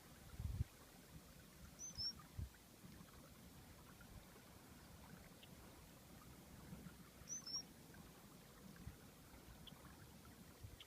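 Faint outdoor quiet in which a bird gives a short, high two-note chirp twice, about two seconds in and again just past seven seconds, over a low rumble with a few soft thumps.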